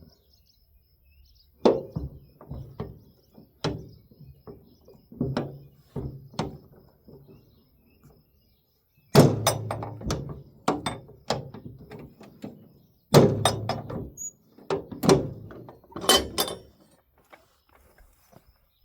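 Heavy metal clanks and knocks from work on a trailer wheel: a run of separate knocks, then two louder, denser clusters of clanking about nine and thirteen seconds in.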